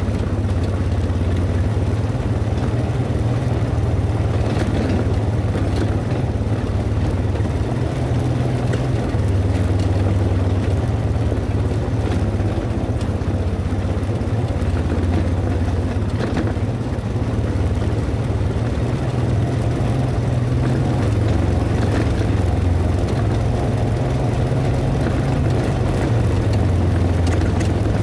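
ATV engine running steadily while riding, its low note rising and dipping slightly with the throttle.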